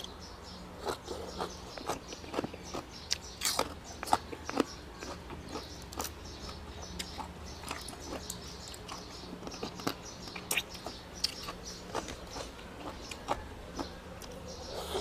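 A person chewing and biting food close to the microphone: irregular crunching clicks, sometimes several in quick succession, over a steady low hum.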